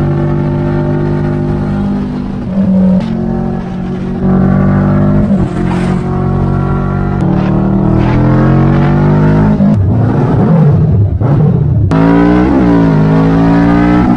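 Kawasaki Vulcan cruiser motorcycle engine running under way, its pitch rising and falling as the bike speeds up and changes gear.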